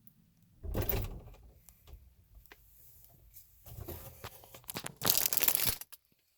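Handling noise from a phone being moved and rubbed about inside a refrigerator: three bursts of rustling, crinkling scrapes, the loudest about five seconds in, with scattered small clicks between them.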